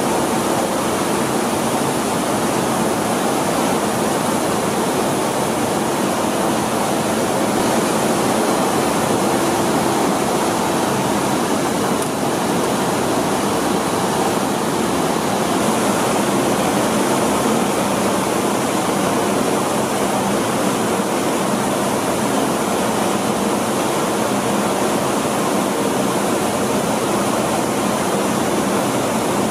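Rice mill machinery running: a steady, even noise that does not change.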